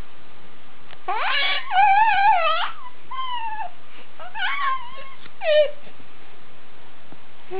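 Rubber squeaky toy being squeezed: a long run of wavering high squeaks about a second in, then three shorter squeaks.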